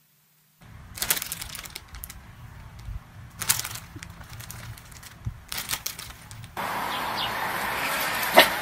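Plastic-foil chip bags crinkling and crackling under a cat, in a few bursts of sharp crackles. About six and a half seconds in this gives way to a steady outdoor noise bed with a few faint chirps and one sharp click near the end.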